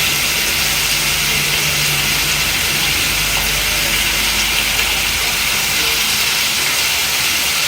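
Pan of liver in tomato sauce simmering on the heat, with a steady sizzling hiss.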